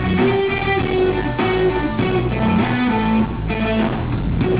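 Live rock band playing an instrumental passage, with strummed guitar chords over bass and drums and no vocals.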